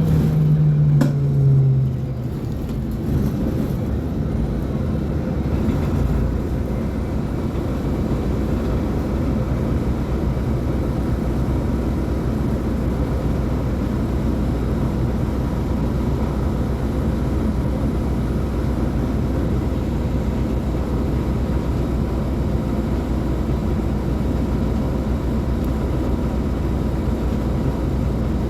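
Mercedes-Benz O500U city bus diesel engine running. A strong pitched tone falls and fades in the first two seconds, then the engine settles into an even low drone.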